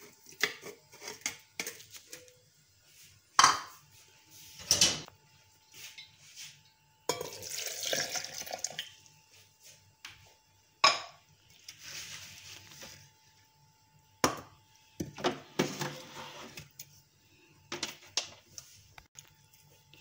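A stainless-steel blender jar and spoon clinking and knocking as boiled apricots and their cooking water go into it, with a few sharp metal knocks and three stretches of liquid being poured in.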